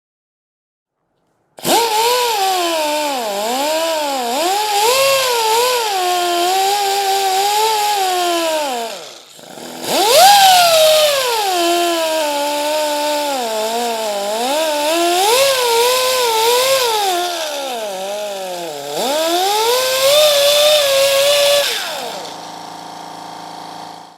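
Pneumatic grinder running on compressed air: a loud, high whine whose pitch wanders up and down, cutting out briefly about nine seconds in and then starting again. Near the end the grinder stops and a quieter, steady hum remains.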